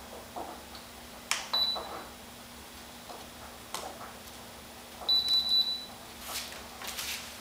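Two steady high electronic beeps, a brief one about a second and a half in and a longer one about five seconds in, among sharp clicks and knocks of hands handling the plane's parts.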